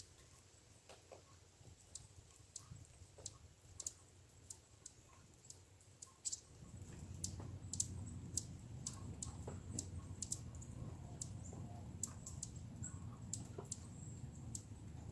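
Scattered sharp clicks and ticks at an irregular pace, several a second at times. A low rumble joins them about seven seconds in.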